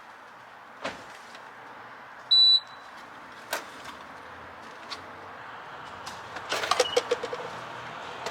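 A short, loud, high-pitched electronic beep about two seconds in, with a few sharp clicks and a brief burst of clattering near the end, over a steady hiss.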